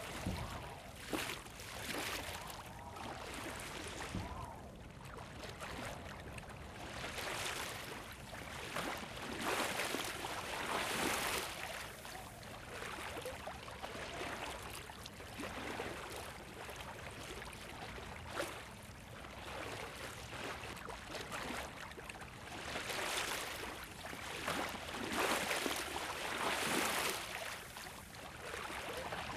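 Sea water washing in and out, its rushing sound swelling and easing every couple of seconds.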